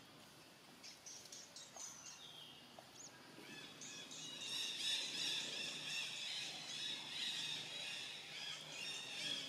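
High-pitched animal calls: a few short, separate chirps at first, then a dense, continuous run of chirping from about four seconds in.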